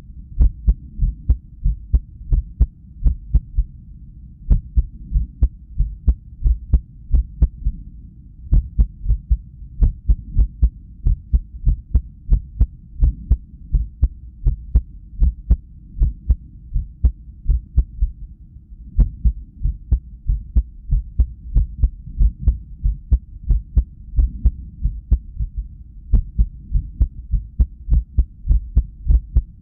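Heartbeat sound from a cardiac ultrasound, beating steadily low in pitch with a click at each beat. The rhythm is uneven, with a few longer gaps between beats: an irregular resting heartbeat that the person puts down to lack of sleep.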